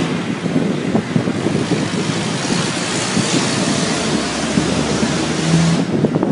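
Wind buffeting the microphone: a loud, steady rushing with a fluttering low rumble, easing off just before the end.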